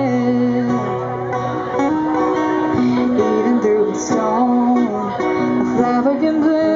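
Live acoustic music: two acoustic guitars strummed and picked under a woman's singing voice, in a blues-rock style.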